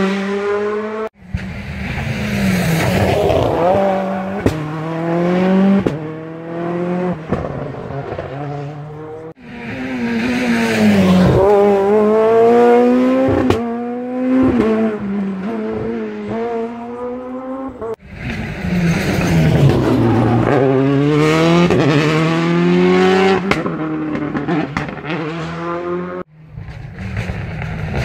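Rally car engines revving hard on a tarmac stage, several passes in a row, each ending in an abrupt cut. In each pass the engine pitch climbs and drops back again and again as the car changes gear, and in places falls away as it slows.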